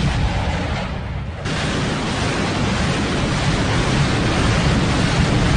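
Loud, steady rushing noise of wind buffeting the microphone, thinning briefly about a second in before it picks up again.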